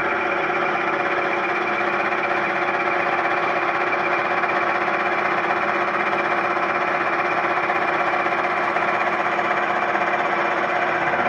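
Milling machine running with its cutter taking a roughing cut about thirty thousandths deep across the workpiece, the table fed by hand. A steady mechanical hum of several even tones with cutting noise over it.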